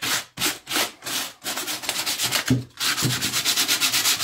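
Sandpaper, about 100 grit, rubbed by hand over a stained wood carving in short rubbing strokes a few times a second, quickening into fast back-and-forth scrubbing about three seconds in. This is light sanding of the carving's high points over dried stain.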